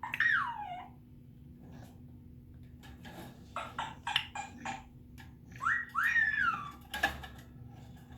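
African grey parrot whistling and calling: a whistle that slides downward, then a string of short chattering calls, then two whistles that rise, hold and fall, with a sharp click just after.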